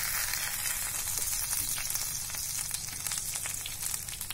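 Hot oil sizzling and crackling around pearl spot fish shallow-frying in a pan, a dense steady hiss that eases slightly toward the end.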